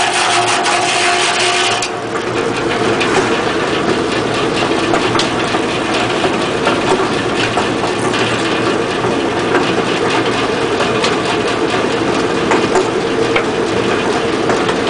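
Homemade circular sawmill running, its large blade sawing lengthwise through a log as the carriage feeds it past. A steady mechanical din with a crackle of cutting; the sound shifts about two seconds in and then holds steady.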